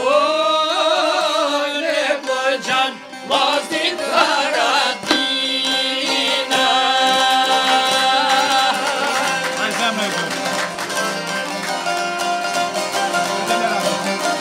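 Albanian folk song: a man singing with a wide vibrato, accompanied by plucked long-necked lutes.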